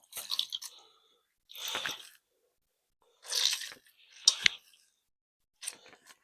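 A halved lemon being squeezed by hand to press out its juice, in about five short wet squeezes with pauses between them.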